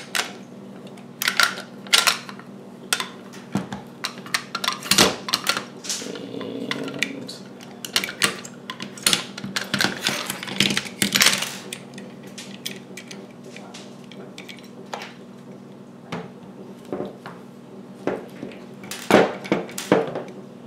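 Parts of an APS ASR 112 airsoft rifle being handled and fitted together: a run of sharp plastic and metal clicks and clacks. They are busiest in the first half and again near the end, with a sparser stretch between.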